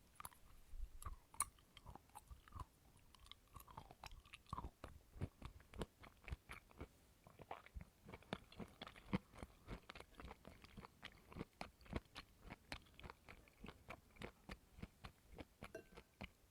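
Close-miked chewing of coconut: a steady run of wet, crunchy clicks, about two to three a second, with a few short squeaks in the first few seconds.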